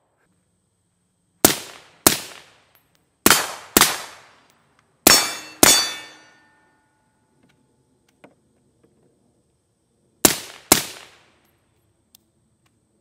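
Eight suppressed rifle shots from a 10.5-inch 5.56 AR fitted with a Griffin Armament DL5 suppressor, fired as four quick pairs. Each shot is a sharp crack with a short ringing tail.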